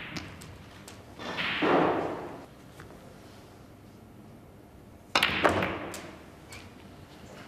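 Snooker shots: the cue striking the cue ball and the sharp clack of ivory-hard balls colliding, two clicks close together about five seconds in. A softer swell of noise comes about two seconds in.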